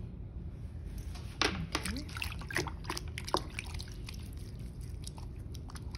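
Wet clicks and drips as a cutting wire is pulled through soft clay at the base of a freshly thrown spout and slip-covered hands handle it, bunched between about one and a half and three and a half seconds in, over a steady low hum.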